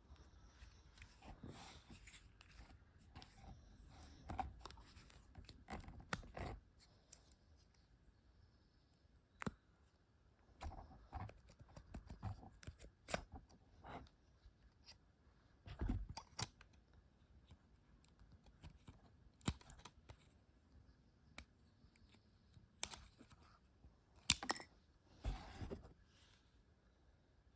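Hands handling packaging and small plastic parts at close range: irregular clicks, taps and short rustles, with a few sharper knocks.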